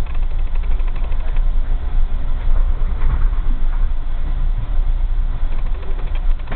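Steady low rumble of a sleeper train's coach running on the rails, heard from inside the coach as the Blue Train pulls into its terminal station.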